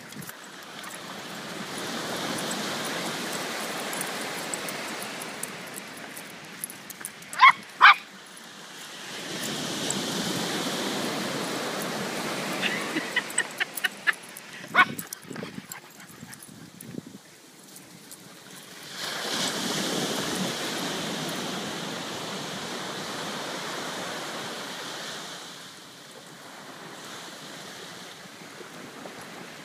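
Surf breaking and washing up the beach in long swells, with a dog barking twice in quick succession about seven seconds in and once more around the middle.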